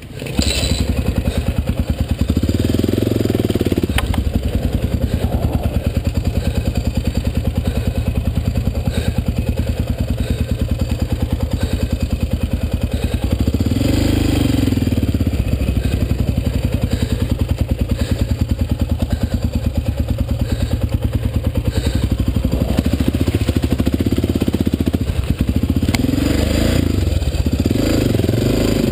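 Dirt bike engine running steadily under load as it climbs a rough trail, revving up and back down several times, with a few sharp knocks along the way.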